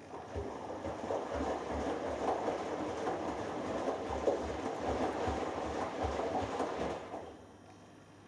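Hoover Dynamic Next washing machine drum turning in the first rinse of a delicates cycle: water sloshing and wet laundry tumbling with soft irregular thuds. It runs for about seven seconds, then stops for the pause between drum turns.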